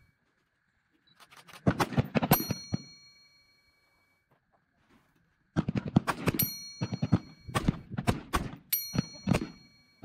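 Rifle gunfire on a firing range: sharp shots in quick succession, a short string about a second in and a longer string from about five and a half seconds to near the end, a few of them followed by a brief metallic ring.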